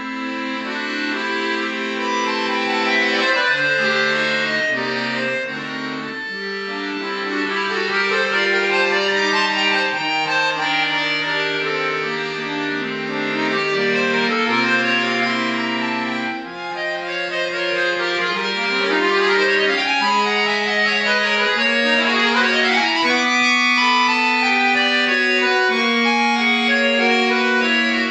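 Piano accordion played solo, classical music: held chords and a melody over sustained low notes, with a short break in the sound about halfway through and quick running passages after it.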